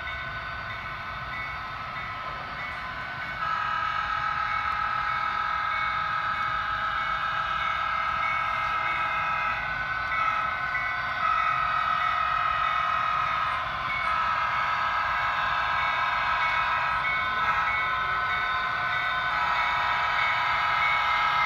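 HO scale model Union Pacific SD70M diesel locomotives running as they come closer, a steady layered hum that steps louder about three and a half seconds in and again around eleven seconds.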